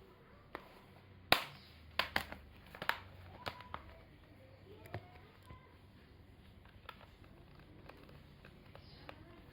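Sharp clicks and knocks of hands handling a laptop and its parts, several in quick succession in the first four seconds, the loudest about a second in, then fewer and fainter.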